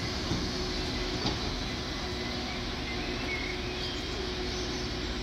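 Steady low rumble of idling road vehicles and a diesel train engine, with a thin steady hum over it.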